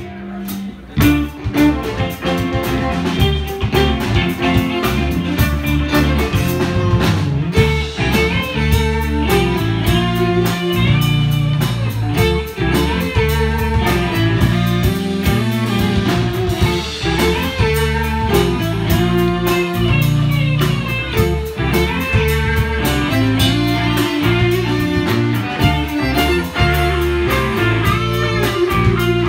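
Live band playing an instrumental passage: electric guitars, bass guitar and drum kit keeping a steady beat, with a fiddle.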